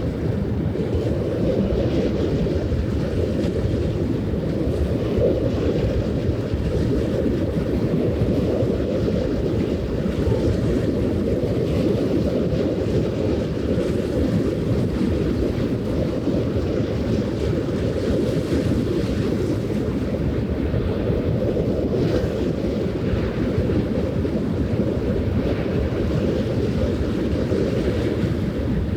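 Wind rumbling steadily on the microphone, a dense low noise without pitch or change.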